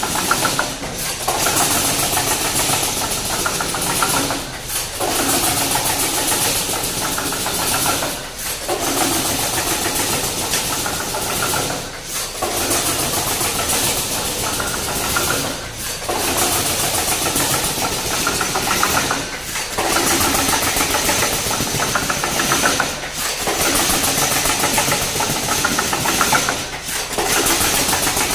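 Automatic wire mesh welding machine running in continuous cycles: a loud, fast-pulsing machine noise that dips briefly about every three and a half seconds, eight times in all, between working strokes.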